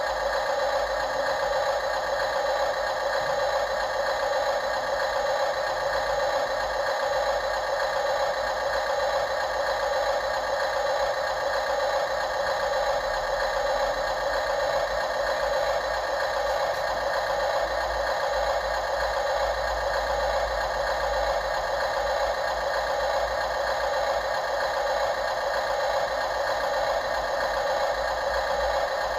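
Radio-controlled model construction machinery running steadily: a continuous mechanical whine with a rattle, holding one even pitch and level throughout.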